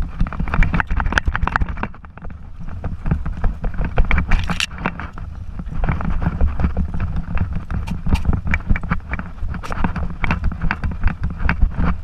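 Movement noise from a camera strapped to a moving dog: irregular clicks and knocks over a steady low rumble of wind and handling noise, with a brighter rustle about four seconds in.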